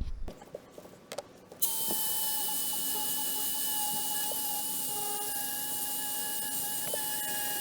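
A few light clicks, then a handheld electric power tool switches on about a second and a half in and runs steadily with a high whine.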